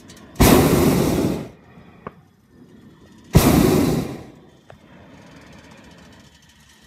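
Hot-air balloon propane burner firing in two blasts of about a second each, the second about three seconds after the first.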